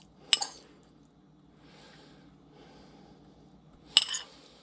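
Utensils clinking against a plate twice, once just after the start and once near the end, with faint soft rustling of food being handled in between.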